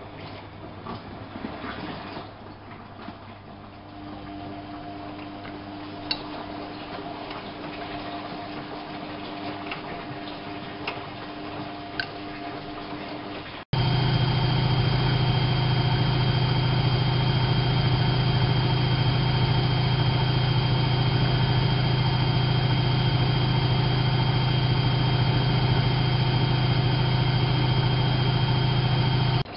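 Whirlpool AWO 5346 washing machine running: water swishing with faint whirring and occasional clicks. About halfway a much louder steady hum with a thin high whine cuts in suddenly, then stops abruptly near the end.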